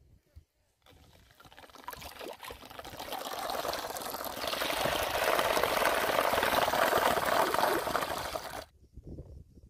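Water splashing and churning around a floating bottle trap in shallow water, growing louder over several seconds and then cutting off abruptly.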